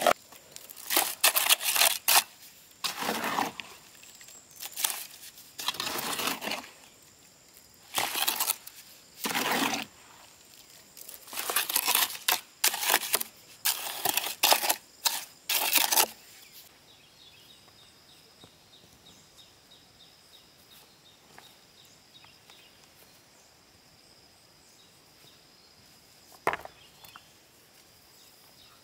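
Steel shovel scraping and scooping wet mortar out of a metal wheelbarrow and dumping it onto a stone wall: a rough scrape every second or so through the first half. After that only a faint outdoor background, with a single knock near the end.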